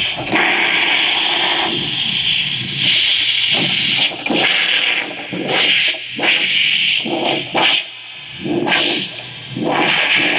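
Experimental electronic noise music: harsh, distorted noise in loud, choppy bursts that cut in and out every second or so, some sweeping up or down.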